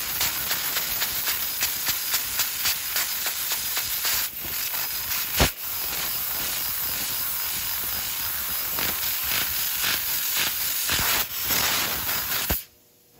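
Fiber laser cutting head cutting sheet steel: a steady hiss of assist gas with rapid pops as it pierces and cuts a grid of small holes, thicker in the first few seconds, with one sharp click about halfway. The sound cuts off abruptly just before the end.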